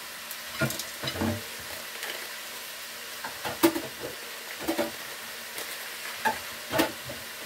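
Pork and vegetables sizzling in a stainless steel pot, a steady frying hiss broken by about six short sharp clicks.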